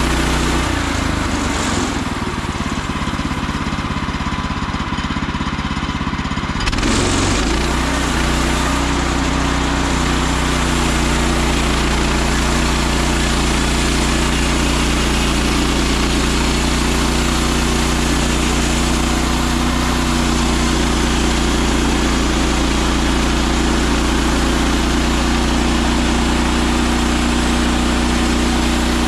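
Portable bandsaw sawmill's gasoline engine running at speed. It drops to a lower speed about half a second in and comes back up about seven seconds in, then holds steady.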